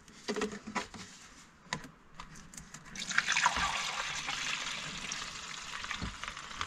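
Liquid poured from a plastic jug through a funnel into a plastic bag: a steady rush of pouring that starts about three seconds in, after a few light handling knocks.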